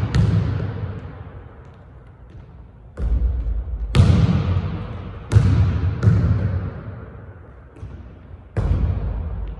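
Basketball bouncing on a hardwood gym court: about five separate, irregularly spaced bounces, each with a long echo in the big gym hall. There is a quieter gap of a couple of seconds before the first.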